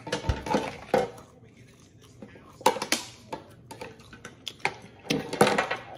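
A man eating a piece of grilled Korean-style beef short rib: mouth and chewing noises, with three short bursts of mumbling through a full mouth and a few small clicks in between.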